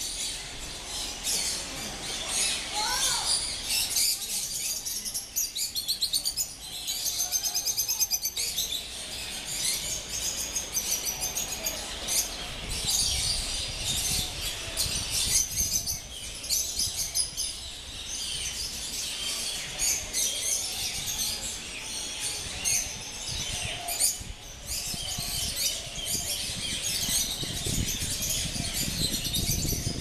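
A dense flock of caged small birds, canaries among them, chirping and singing together in rapid, overlapping trills. A low rumble builds near the end.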